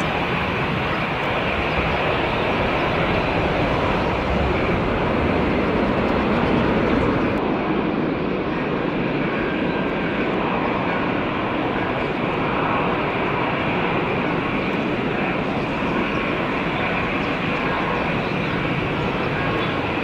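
Jet engines of a Raya Airways cargo jet moving along the runway: a steady engine noise that swells slightly about six seconds in.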